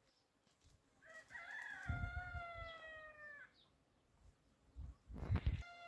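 A rooster crowing: one long call of about two seconds that sags a little in pitch at the end, and a second crow beginning near the end. Dull low thumps come about two seconds in and again shortly before the second crow, the later ones the loudest sound.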